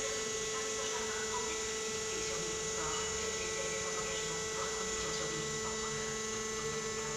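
A 2000 Rachner R 1000 pile turner's drive motor runs with a steady hum, with one strong constant tone, as the machine tilts its clamped platens over.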